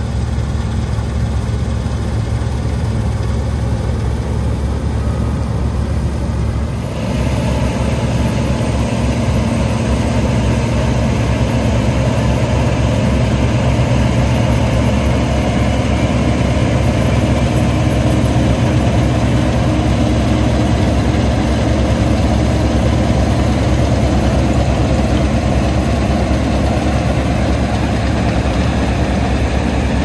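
Diesel engines of combine harvesters running steadily under load while cutting wheat. A short dip about seven seconds in, after which the engine note changes.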